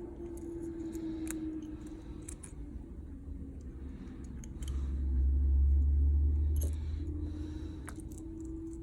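Small scattered clicks and taps of metal tools on smartphone parts during disassembly, over a steady low hum. A louder low rumble rises about halfway through and lasts about two seconds.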